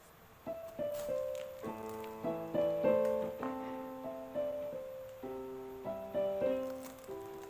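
Piano music playing a melody of single notes and chords, starting about half a second in.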